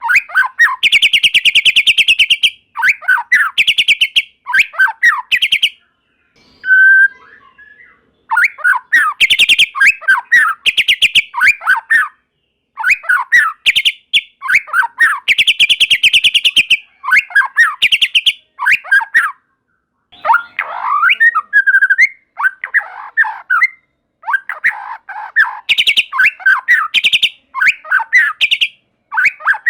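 White-rumped shama (murai batu) singing: bursts of fast rattling trills alternate with short, varied whistled phrases, broken by a few brief pauses.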